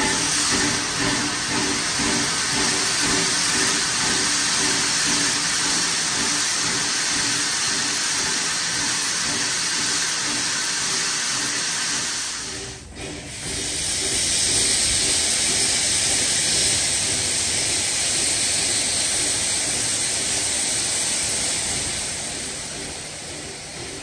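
Steam venting with a loud, steady hiss from around the cylinders of CNJ 113, a 1923 ALCO 0-6-0 steam switcher, with a brief drop about halfway through.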